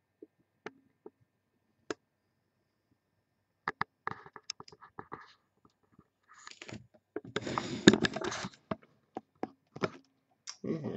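A few sharp single clicks, like a computer mouse, then a run of quicker clicks and light rustling. About seven to eight and a half seconds in, louder rustling and scraping follows as things on the table are handled.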